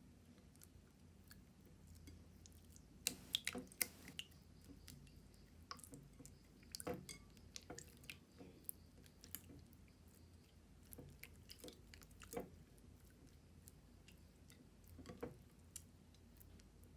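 Hands kneading and stretching putty slime: faint, irregular sticky clicks and wet pops, with a quick cluster of sharper ones about three seconds in.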